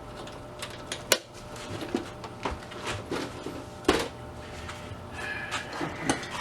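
Metal sockets and tools clinking and knocking as a socket set is packed back into its metal case, with several sharp knocks, the loudest about four seconds in.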